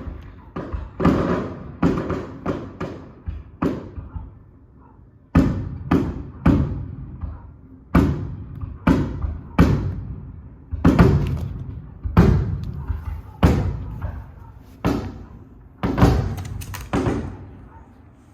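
Aerial firework shells bursting in quick succession: a long run of sharp booms, each with a rolling echo, coming in clusters with a short lull about four seconds in.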